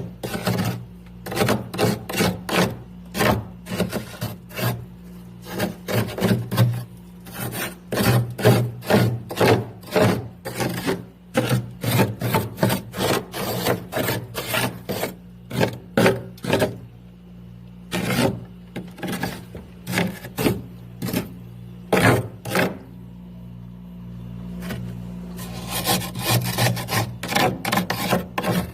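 Built-up freezer frost and ice being scraped in quick repeated rasping strokes, several a second, in bursts with short pauses, over a steady low hum.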